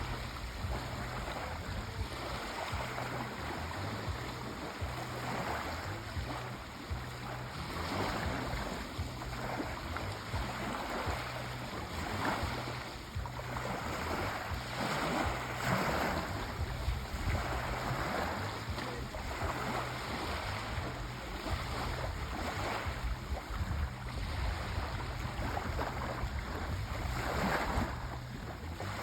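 Sea waves washing onto a shore: a continuous surf noise that swells and eases every few seconds.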